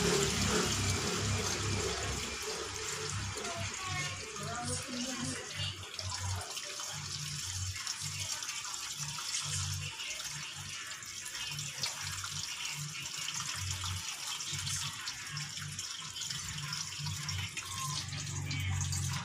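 Gasoline pouring steadily from a plastic bottle through a funnel into a motorcycle's fuel tank, filling the tank. A low hum comes and goes underneath.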